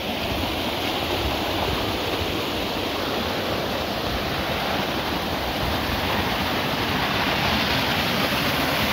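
Steady rush of muddy rainwater runoff pouring down a gully, growing gradually louder.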